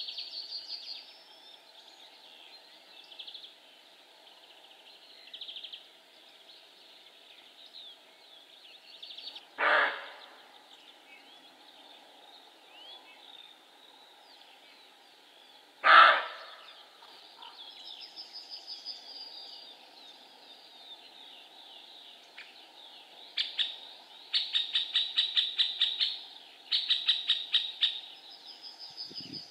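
Male roe deer barking twice, two short barks about six seconds apart, the second louder. Songbirds sing throughout, with rapid, fast-pulsed trills in the last few seconds.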